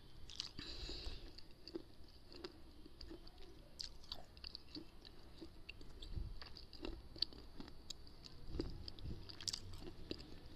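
A person chewing hard, brittle mineral pieces such as slate pencil or baked clay, close up to a microphone held at the lips: many small, irregular crunches and crackles.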